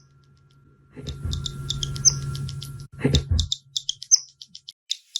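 A bird's high, quick chirps, repeating in a regular pattern with a brighter, higher note about every two seconds, so that it sounds like a phone ringtone. A low rustling rumble comes in about a second in and stops halfway through.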